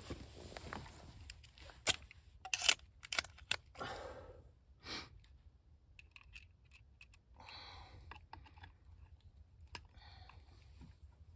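Hand work at close range: a series of sharp clicks and knocks over the first five seconds, then brief scraping or rustling about two-thirds of the way in and again near the end.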